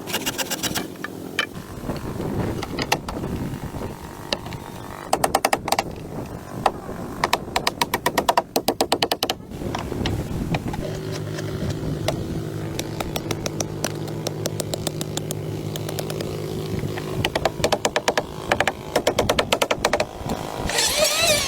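A small engine running unevenly, with bursts of rapid knocking and a steadier hum in the middle stretch.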